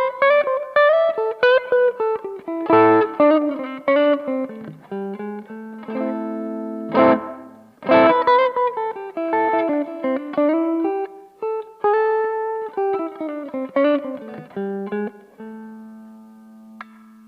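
Electric guitar played through a BOSS OD-2 Turbo Overdrive pedal: picked single-note lead lines with string bends and a couple of struck chords. It ends on a held note that slowly dies away.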